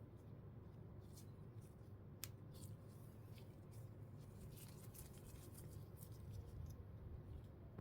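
Faint packaging being handled: many small, quick clicks and crinkles, busiest in the middle, over a low steady room hum.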